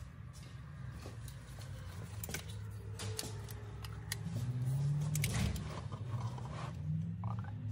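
Scattered plastic clicks and handling knocks as a plastic quart bottle of engine oil is opened and brought to the fill funnel, over a low steady hum.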